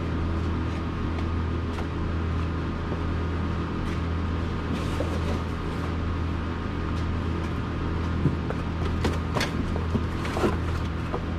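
Steady low machine hum in a repair shop, with a few sharp clicks and knocks near the end as parts are handled.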